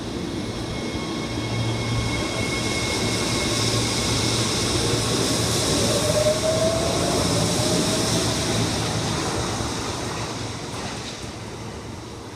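Kintetsu 3220 series train pulling away, its Hitachi IGBT VVVF inverter whining as it rises in pitch while the train gathers speed, louder as the cars pass and then fading. The departure tone is somewhat lower than normal, an intermittent abnormal sound that may come from a fault.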